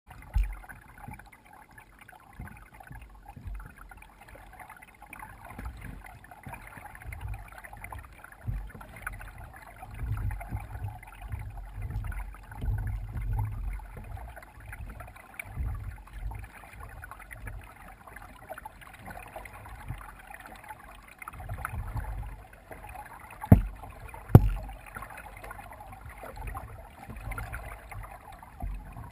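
A kayak being paddled: uneven low rumbling and water sounds from the strokes and the hull moving through calm water, with two sharp knocks a second apart about three-quarters of the way through.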